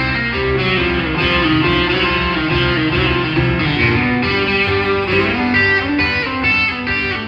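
Band music without vocals: an instrumental break led by electric guitar over bass and drums, played between sung lines of a Christmas song.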